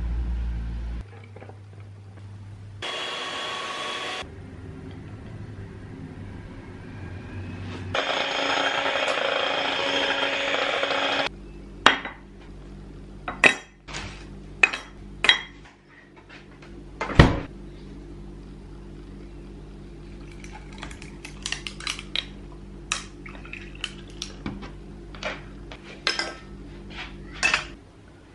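Kitchen sounds of making iced dalgona coffee: a few seconds of steady rushing noise, then a run of sharp clinks and knocks of ice and utensils against a drinking glass, with lighter, quicker clinks and taps near the end.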